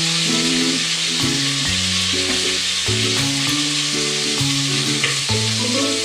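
Chicken pieces searing skin-side down in hot oil in a steel pot, a steady loud sizzle, with occasional scrapes of tongs against the pot. Background music with a melodic line plays under it.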